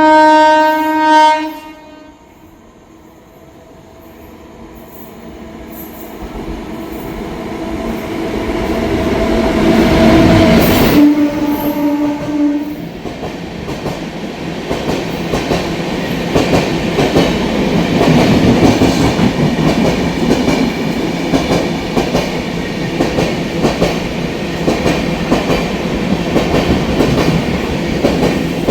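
Indian Railways train horn blowing, then a train approaching through a station at speed and growing steadily louder, its tone dropping in pitch as it passes. A second, lower horn blast follows, then the wagons rattle past with a continuous clickety-clack of wheels over rail joints.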